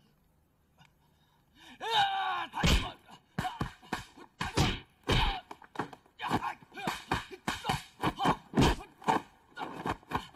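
Martial-arts film fight sound: a fighter's drawn-out yell about two seconds in, then a fast, uneven run of dubbed punch and kick impacts, well over a dozen sharp hits, mixed with grunts.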